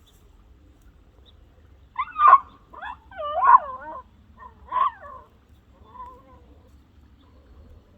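Dog whining and yelping in excitement at an animal down a hole: three loud, wavering cries close together, then fainter whimpers.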